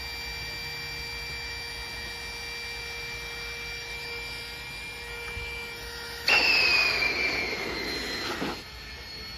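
Small electric air pump running steadily with a constant whine as it inflates a blow-up paddling pool. About six seconds in the sound turns suddenly louder and rushing, with a falling whine, for about two seconds, then drops back.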